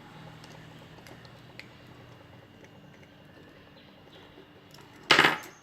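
Small clicks and handling noises from hand-wiring a switch board, with one brief, loud clatter about five seconds in.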